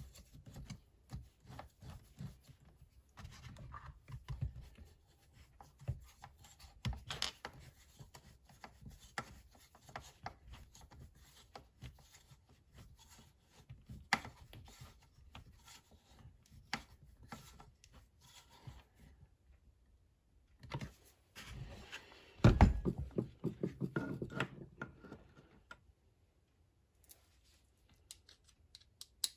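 Hand tools and plastic chainsaw parts being handled at a workbench: scattered clicks, rubs and small scrapes of a driver and screws against the saw's housing. About two-thirds of the way through comes a louder clatter of knocks and rattling.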